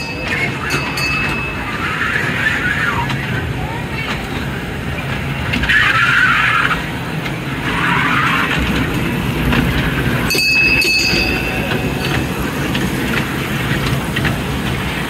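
Fairground kiddie train ride running along its track and passing close by, a steady mechanical hum with people's voices around the ride.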